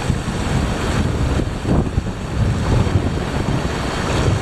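Wind buffeting the microphone over sea waves washing against shore rocks: a steady, gusting rush with no distinct events.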